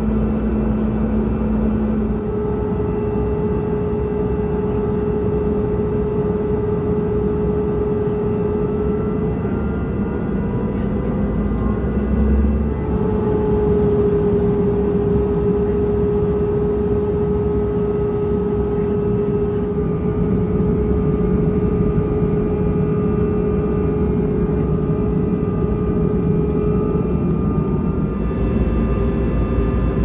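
Cabin noise of a CRJ-200 regional jet in descent: a steady rush of air with the hum of its rear-mounted GE CF34 turbofans. The pitch of the engine hum steps up about two seconds in and shifts again a little before halfway.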